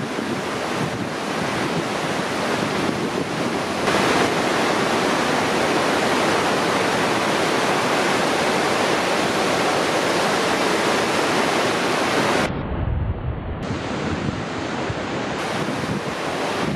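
Lake waves breaking in a steady rush of surf, with strong wind blowing across the microphone. The noise gets louder about four seconds in, and a low rumble of wind on the microphone comes in briefly past the twelve-second mark.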